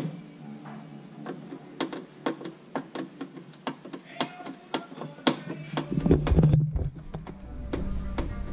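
Irregular clicks and knocks of hard plastic parts being handled and fitted while a storage box is installed, with a louder low rumble of handling about six seconds in.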